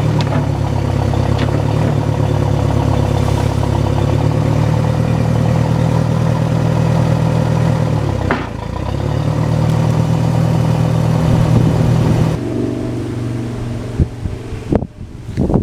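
Case 530 loader backhoe engine running steadily, dipping briefly about 8 seconds in. It cuts off about 12 seconds in, leaving wind on the microphone and a few knocks.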